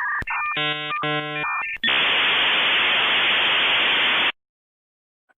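A click, then a harsh buzzer sounding twice, then about two and a half seconds of loud static hiss that cuts off suddenly.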